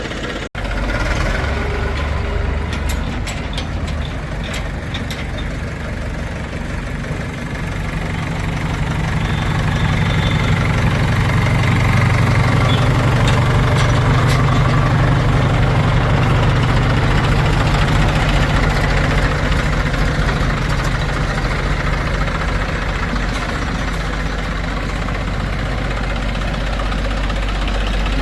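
Heavy diesel engine of farm machinery running steadily. It works harder and louder from about eight seconds in, then eases off slightly near the end.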